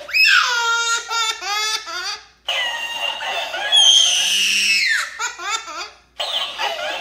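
A toddler crying and laughing by turns, while a plush talking-hamster toy repeats her sounds back in a high-pitched, sped-up voice. The toy's replies start and stop abruptly.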